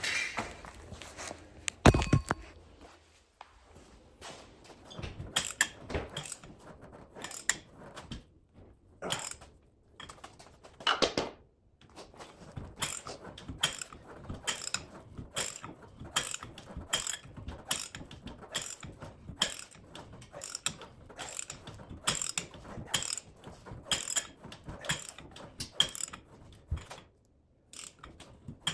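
Hand ratchet being worked in repeated strokes, its pawl clicking about twice a second, with a few louder knocks of tool on metal in the first half.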